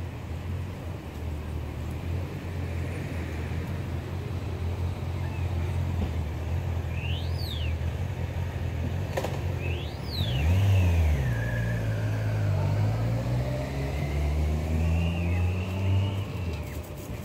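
Road traffic: a motor vehicle's engine hum throughout, growing louder about ten seconds in as a vehicle passes, its engine pitch rising and falling. A few short high chirps cut in around the middle.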